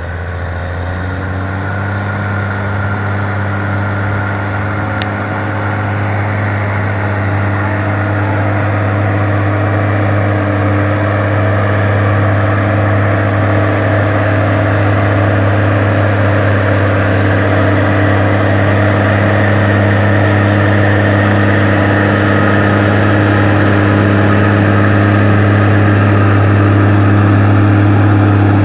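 Heavy diesel engine of a Caterpillar log skidder running at a steady speed under load as it tows a loaded logging truck uphill on a cable, slowly growing louder as the machine draws nearer.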